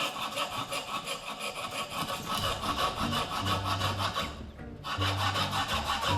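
Rapid, even rasping strokes of a hand tool working wood, about six a second. A music bass line comes in after about two seconds.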